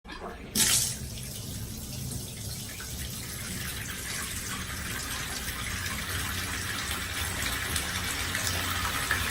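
Hot water running from a tap into a bathtub to fill it. It starts suddenly with a brief louder gush about half a second in, then settles into a steady splashing flow that slowly grows louder.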